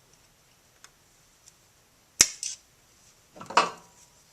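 Cross-cut (diagonal) wire cutters snapping once through an old hard plastic triple seal on a Ferrari 348 gearbox shaft: one sharp crack about two seconds in, followed a second later by a short clatter of handling.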